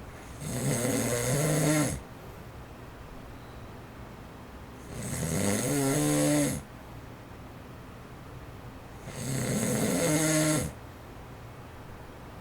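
A man snoring: three long, pitched snores about four seconds apart, each building up and then cutting off sharply. Between them the faint, steady wind noise of an electric fan on its low setting.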